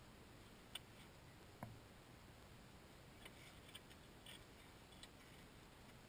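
Faint, irregular clicks and taps of ice spud bars chopping at a slushy hole in lake ice, about six in all, the loudest a duller knock about a second and a half in, over a quiet outdoor hiss.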